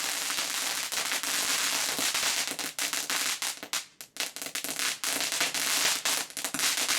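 Silver Rain ground firework fountain spraying with a steady hiss, turning to dense crackling pops from about three seconds in.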